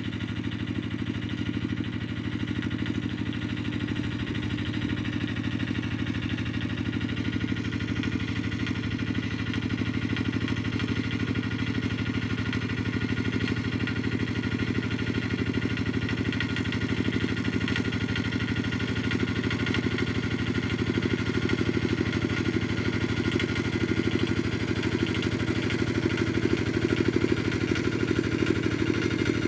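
Tractor engine running steadily while ploughing, growing louder near the end.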